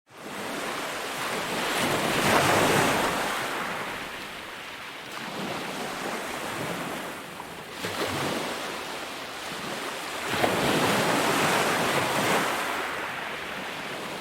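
Ocean surf: waves breaking and washing in, swelling loudest about three times and easing off between. The sound comes in suddenly at the start.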